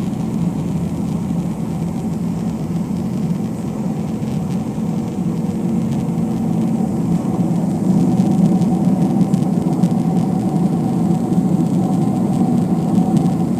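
Jet airliner engines and airframe rumble heard from inside the cabin: a loud, steady low drone that grows a little louder about eight seconds in.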